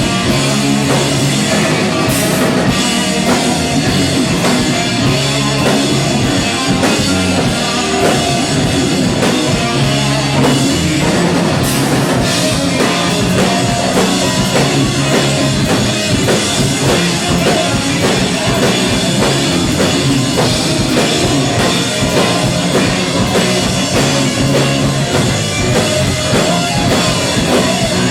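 Live rock band playing loud and steady, with drum kit and distorted electric guitar.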